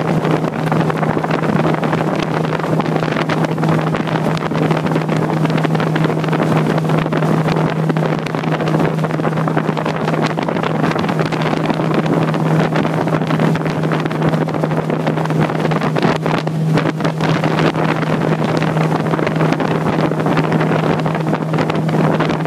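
Outboard motor running at a steady cruising pace, a constant low hum with no change in pitch, over the rush of water along the aluminium hull and wind buffeting the microphone.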